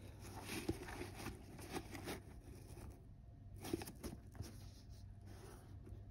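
Faint handling noise from a Nike Air Jordan 1 Low sneaker being turned in the hands: fingers rubbing and scratching on the leather and tongue, with small ticks and rustles. The sounds are busier in the first half and thin out after about three seconds.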